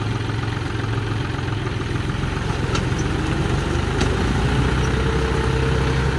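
Tractor diesel engine running steadily while towing a stuck tractor out of the mud, its pitch rising slightly in the second half.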